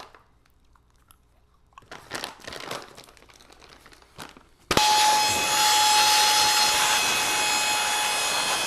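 Light handling and crinkling noises, then about halfway through a small motorised tool or blower switches on suddenly and runs steadily with a hiss and a constant mid-pitched whine.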